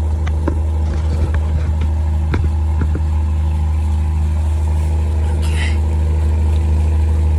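An engine idling with a steady low hum. A few light clicks come in the first three seconds, and a brief hiss about five and a half seconds in.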